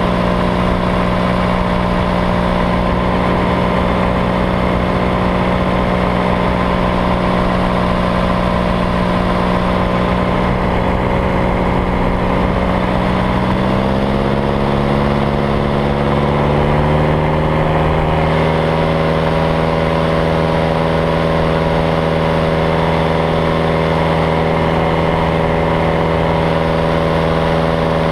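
Paramotor engine running steadily in flight, its drone rising in pitch a little past halfway through as the throttle is opened, then holding at the higher speed.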